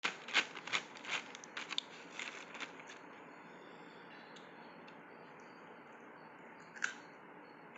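Crisp crackling and crunching as Chocos Fills are handled: a quick run of sharp crackles over the first three seconds, then a faint steady hiss with one more crackle near the end.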